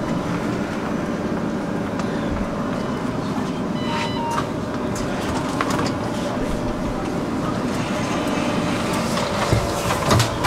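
Tram interior while the tram stands at a stop: a steady electrical hum over a noisy background. A short electronic beep sounds about four seconds in, and a few knocks and heavy thumps come near the end.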